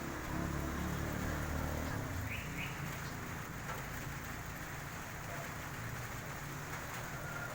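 Rain falling steadily: an even hiss, over a low rumble that eases off about two seconds in. Two short, high chirps come a little after that.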